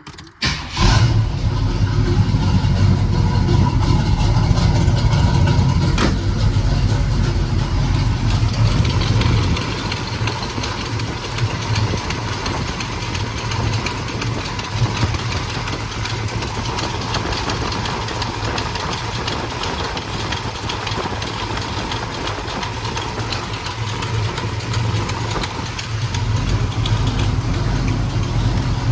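Cammed small-block Chevy V8 with new stainless Hooker headers starting about half a second in and running at a fast idle, then settling to a lower idle about ten seconds in and rising again near the end. It is being run to check the resealed headers for exhaust leaks. A single click comes about six seconds in.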